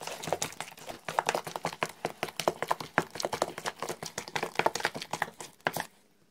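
Bare hand mixing a thick, wet spice marinade with oil and yogurt in a plastic bowl: rapid squelching and smacking that stops near the end.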